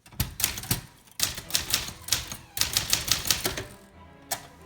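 Typing on a Brother Charger 11 manual portable typewriter: sharp key-and-typebar clacks in several quick bursts with short pauses between them.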